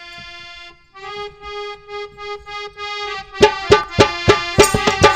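Indian folk dance music intro: a reedy, accordion-like melody in long held notes, joined by a steady drum beat about three and a half seconds in.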